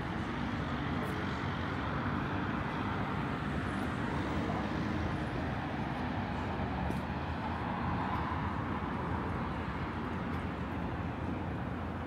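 Road traffic on a city street: a steady mix of car engine and tyre noise.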